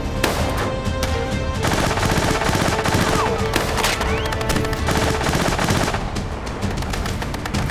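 Rapid gunfire in a shootout, pistol shots mixed with quick bursts of automatic fire, over a film score.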